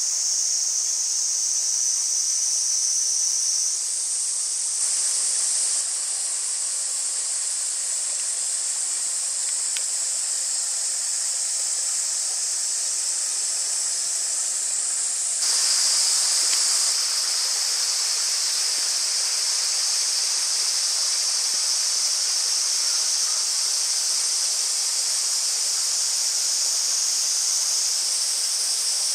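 A dense insect chorus: a steady, shrill, high-pitched buzz that shifts in pitch and loudness abruptly a few times.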